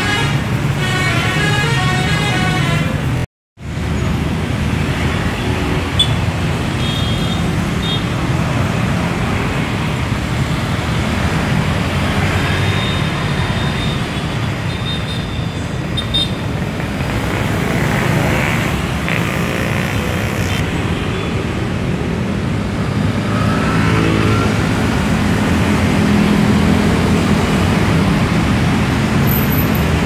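Steady road traffic: motor scooters and cars running past on a busy street. In the first three seconds a multi-tone bus 'telolet' horn plays a short stepped tune. The sound cuts out briefly about three seconds in.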